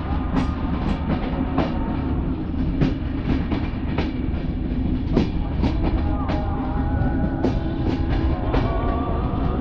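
Passenger train running along the track, heard from alongside the coach: a steady rumble with sharp clacks of the wheels over rail joints and points, roughly twice a second, and music playing over it.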